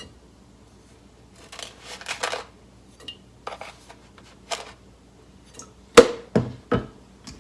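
Tablespoon scooping sugar and tipping it into a pot of water: a short run of scraping and rustling, a few light clicks, then three sharp knocks of the spoon on the pot near the end.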